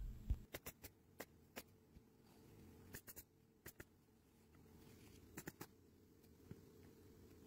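Faint, irregular clicks and scrapes of a knife being drawn through asphalt shingles to cut a roof valley, the knife dull enough to make the cutting hard going.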